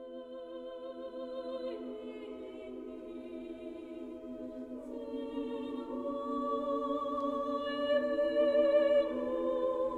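Background music: a choir singing slow, long-held chords that change every few seconds and gradually grow louder.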